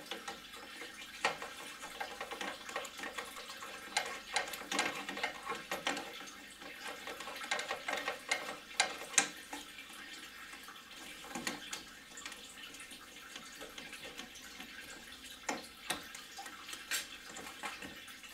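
Engine coolant running steadily out of a radiator through the disconnected bottom radiator hose as the cooling system drains. Scattered small clicks and clinks of a screwdriver working the top radiator hose clamp are heard over it.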